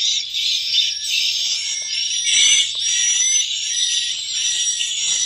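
Recorded swiftlet roosting calls ('suara inap') played through a pair of horn tweeters from a swiftlet-house amplifier. The sound is a dense, continuous chatter of high chirps and twitters, with thin whistling glides through it. It is a stereo lure with two different roosting-call tracks, one on the left channel and one on the right.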